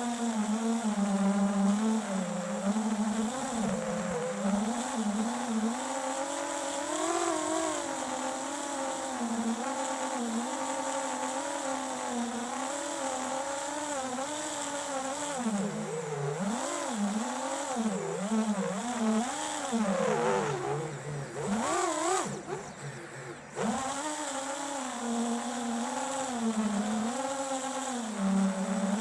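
Flywoo FPV quadcopter's brushless motors whining in flight, the pitch rising and falling continuously with throttle changes. Near the end the pitch drops sharply and the sound briefly sags, as if the throttle is chopped, before picking up again.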